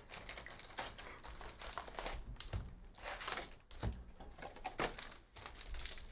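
Crinkling and rustling of plastic shrink-wrap and foil trading-card packs as a hobby box of basketball cards is unwrapped and opened. It is a string of irregular crackles with a few louder rustles.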